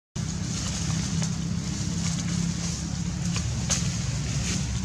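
A steady low rumble of outdoor background noise, with a few sharp crackles of dry leaves scattered through it.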